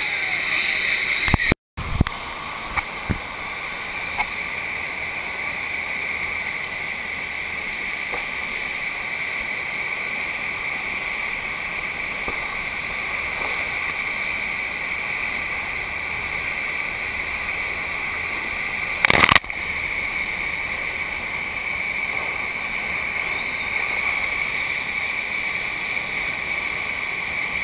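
Steady rush of water pouring over a FlowRider sheet-wave machine's riding surface, with one sharp click about two-thirds of the way through.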